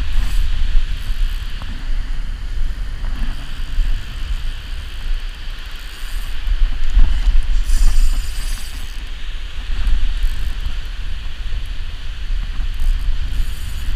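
Wind buffeting the microphone in a steady low rumble over surf washing onto the beach, with a louder rush of water about halfway through.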